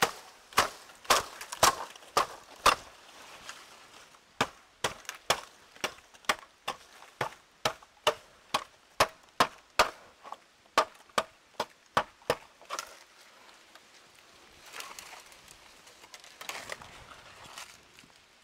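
Bamboo being chopped with a blade: a run of sharp strokes, about two a second, that stops about twelve seconds in, followed by faint rustling.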